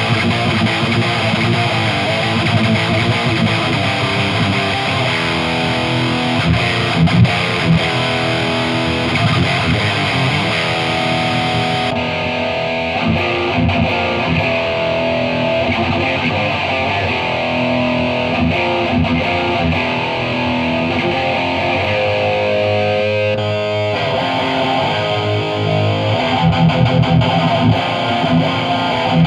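High-gain distorted electric guitar riffs played through a Marshall 1960A 4x12 cabinet, raw and unprocessed. The first take is through the brand-new cab. About twelve seconds in the sound changes to a room mic on the worn, heavily used old cab, and near the end to a room mic on the new cab.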